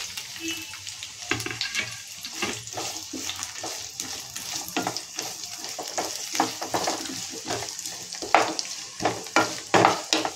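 Chopped onions sizzling in hot oil as they sauté, stirred with a wooden spatula that scrapes and knocks against the pan, the strokes louder near the end.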